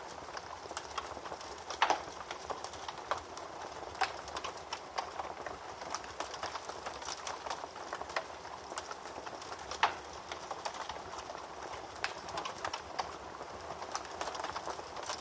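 Wood fire in a fireplace crackling: a steady hiss with irregular sharp pops and snaps, two of them louder, about two seconds and about ten seconds in.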